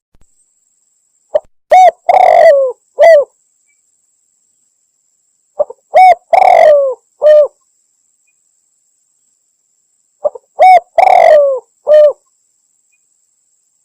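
Spotted dove cooing: three identical phrases about four and a half seconds apart. Each is a short note, a clear coo, a long rolling coo and a final coo. It is a lure call, billed as a female calling the male.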